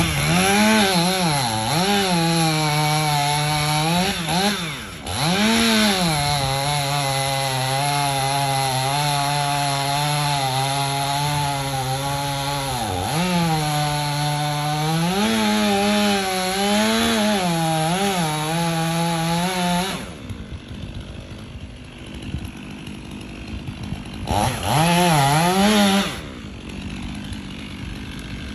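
Two-stroke chainsaw cutting into the base of a tree trunk at full throttle, its engine note sagging and recovering as the chain bites into the wood. It drops to idle about twenty seconds in, revs once more briefly, then idles again.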